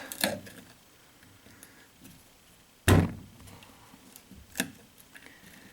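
Two thunks of something hard being knocked or set down. The first, about three seconds in, is loud. The second, about a second and a half later, is lighter.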